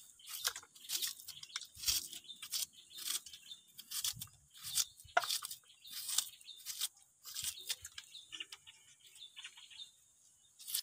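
Kitchen knife slicing a red shallot held in the hand, a crisp crunch with each cut, two or three cuts a second, thinning out near the end.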